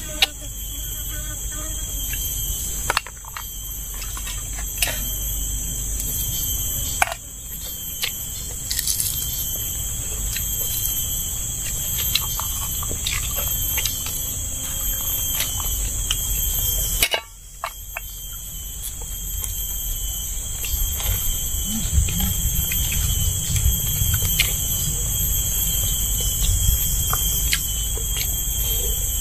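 Steady high-pitched insect chorus, a continuous shrill buzz, with a few sharp clicks scattered through it.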